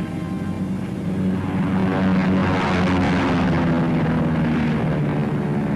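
Propeller aircraft engines droning steadily, swelling louder a second or two in.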